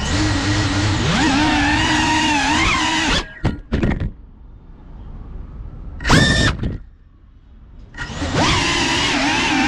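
Ducted-prop FPV cinewhoop (GEPRC CineLog35) brushless motors and propellers whining under throttle, the pitch wavering as the throttle moves. About three seconds in the whine drops away for several seconds, with a few short throttle blips, as the throttle is chopped for a flip, then it comes back up steadily near the end.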